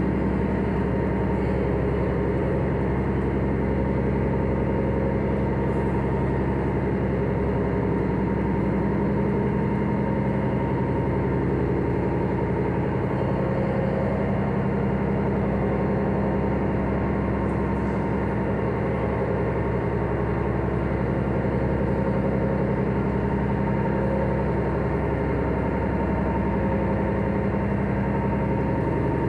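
The Hakone pirate ship Victory's engine running, heard from inside the passenger cabin: an unchanging drone with a thin steady tone above it.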